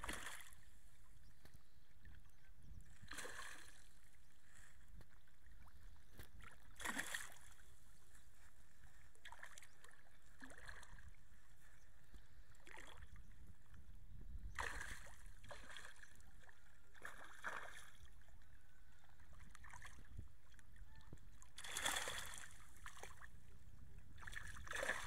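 Hooked fish thrashing and splashing at the surface in shallow water, in short separate splashes every second or few seconds, over a steady low rumble.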